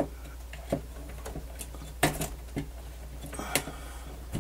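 Scattered light clicks and knocks of a plastic latch and panel inside an opened cassette deck being worked loose by hand, the sharpest about two seconds in and again near three and a half seconds.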